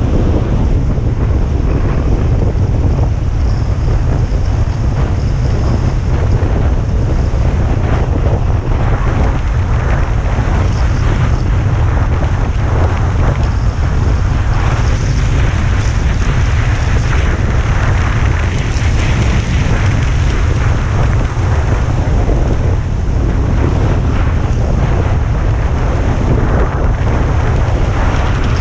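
Strong wind buffeting the camera's microphone during a downhill ski run, a loud steady rumble, with the skis hissing and scraping over packed snow.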